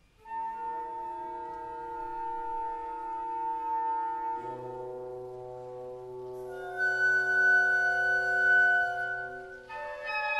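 Symphony orchestra playing slow, sustained chords. About four seconds in, a low bass note and a new chord enter. Bright high notes join around six and a half seconds, and the chord changes again near the end.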